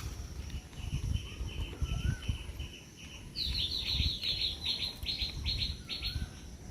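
A bird chirping in a quick, even series of short high notes. About halfway through the notes turn louder and higher, then stop shortly before the end. A low, uneven rumble runs underneath.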